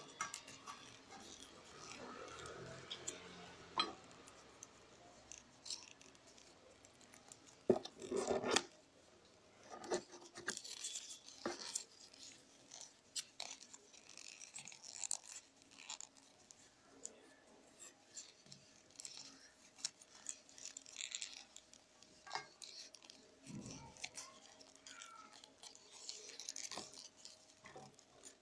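Rolled newspaper tubes rustling, scratching and clicking against each other as they are woven by hand: faint, irregular crackles, with a louder brush of paper about eight seconds in.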